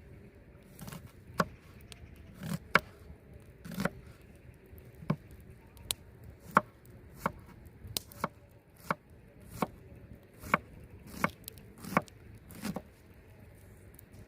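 A knife chopping food on a cutting board: a series of about seventeen sharp chops, roughly one a second, some in quick pairs.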